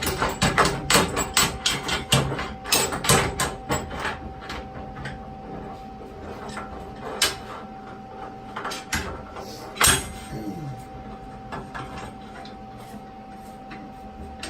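Steel slide clamps being set and tightened on a steel tube frame on a metal welding table: a quick run of metal clicks and clanks over the first few seconds, then scattered knocks and one sharp metal knock near ten seconds. A faint steady hum runs underneath.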